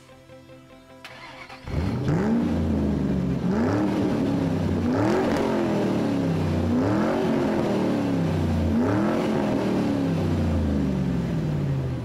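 A car engine revving repeatedly, starting about two seconds in: a series of blips, each rising quickly in pitch and falling away slowly, a couple of seconds apart.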